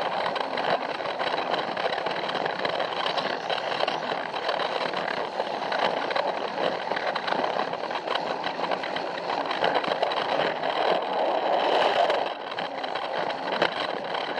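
Plarail toy train's small battery motor and gearbox whirring as it runs along plastic track, with a constant patter of small clicks from the wheels over the rails.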